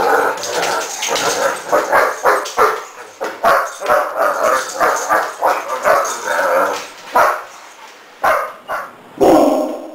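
Irish wolfhounds barking while they wrestle in play: a rapid, dense run of barks for about seven seconds, then a few single barks spaced apart near the end.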